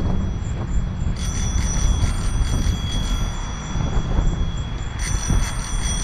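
Bicycle bell rung in two bursts of quick repeated strikes, about a second in and again near the end, warning pedestrians walking in the bike lane ahead. Under it, a steady rush of wind on the microphone from riding.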